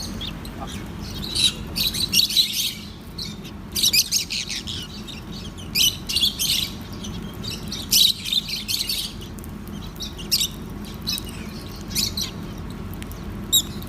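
Lovebirds chirping in quick clusters of high, sharp chirps, coming in bursts every second or two over a steady low hum.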